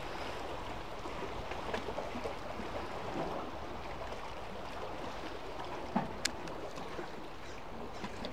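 Sea water washing and lapping among concrete tetrapods, a steady rushing, with a few light clicks, the sharpest about six seconds in.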